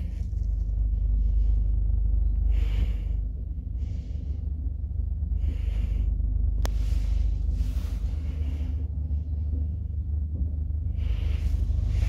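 1965 Fiam traction elevator in operation: a steady low rumble, with a soft hiss recurring every few seconds.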